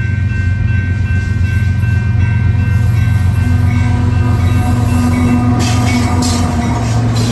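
A Union Pacific GE Evolution-series (GEVO) diesel locomotive passing close by, its engine running in a loud, steady low rumble with steady higher tones over it. From about five and a half seconds in there is a clatter of wheels on the rails as the locomotive goes by.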